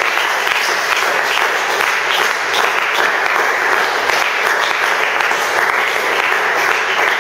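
A congregation applauding: steady, dense clapping from many hands.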